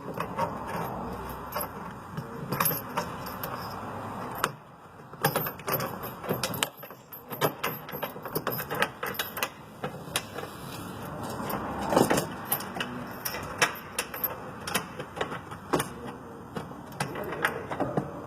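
Metal clinking and rattling of bolts and tools being handled while the first rock-slider bolt is fitted, with many irregular sharp clicks.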